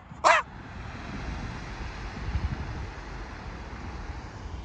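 A brief vocal sound, then wind rumbling on the phone microphone over the low hum of distant road traffic.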